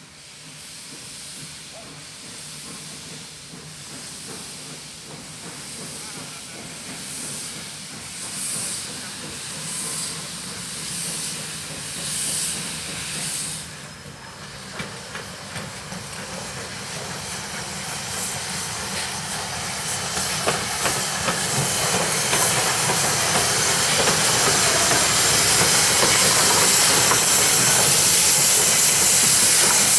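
Ol12-7 steam locomotive approaching at low speed: slow exhaust chuffs about one a second for the first half, then a steady steam hiss from the cylinder cocks that grows loud as the engine draws close and rolls past, with light clicks of wheels over rail joints near the end.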